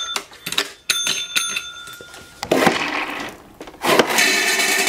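A desk call bell is struck about a second in and rings for about a second. Then dry dog kibble rattles out of a wooden dispenser into a stainless steel bowl, twice, the second time as the dispenser's knob is turned.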